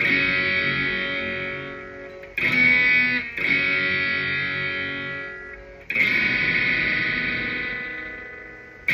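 Electric guitar chords on an upgraded Epiphone Les Paul Prophecy with Gibson humbuckers, played through a lightly overdriven amp with the guitar's volume knob rolled down to clean up the tone. Each chord is struck and left to ring out and fade before the next, with fresh strums about two and a half seconds in, again briefly a second later, and near six seconds.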